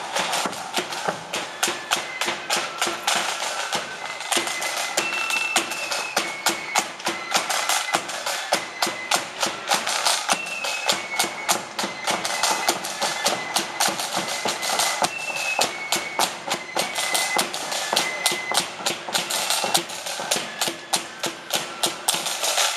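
Marching flute band playing a tune: a high flute melody over side drums beating a brisk, rapid rhythm.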